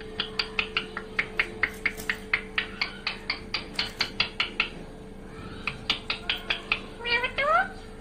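Rose-ringed parakeet giving a rapid string of short, sharp clicking chirps, about five a second, then a pause and a shorter run. Near the end come a few rising, whining calls.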